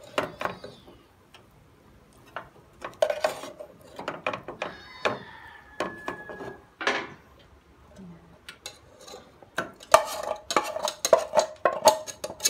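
A metal spatula clinks and scrapes against a steel cooking pot as chicken pieces are lifted out. Near the end comes a dense run of metal clanks and scrapes as the pot is tipped against the rim of an aluminium pressure cooker to pour.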